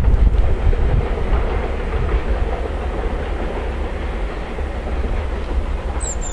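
Distant freight train of timber-loaded flat wagons rolling past, a steady rumble of wheels on the rails with some clickety-clack over the rail joints. A brief high chirp sounds near the end.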